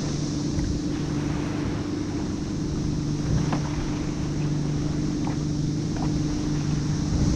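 A steady low motor hum on the water with a tone an octave above it, over wind and water noise, with a few faint ticks.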